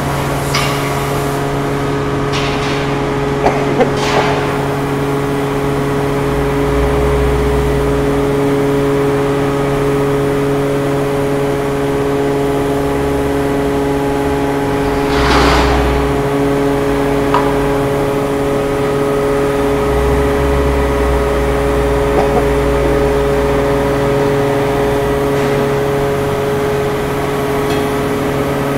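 A large forklift's engine runs under load over a constant machine drone, swelling in pitch and level a few times as it carries a heavy hot steel blank. There are a few sharp knocks in the first seconds and one about halfway through.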